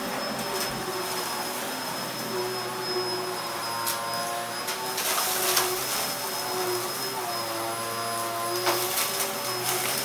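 Dyson DC04 bagless upright vacuum cleaner running steadily, a motor hum with a constant high whine, its tone shifting as the head is pushed over the rug toward the dirt pile. A few sharp clicks come through, most near the end.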